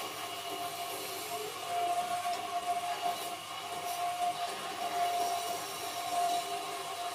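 Wood lathe running while a chisel cuts into the spinning wooden workpiece, peeling off shavings: a steady high whine that swells and fades over the hiss of the cut.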